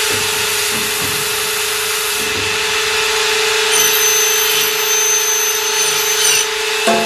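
CNC aluminium profile machining line running: a steady machine hum under a noisy machining sound, with a high whine coming in about four seconds in and stopping about six and a half seconds in.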